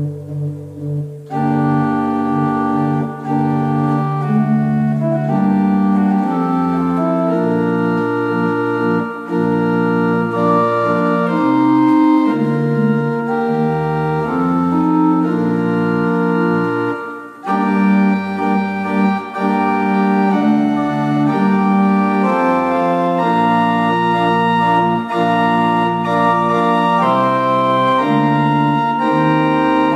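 English pipe organ, with parts possibly as early as 1780, playing a slow piece in held chords over a moving bass line. The upper notes come in about a second in, and there is a short break about seventeen seconds in.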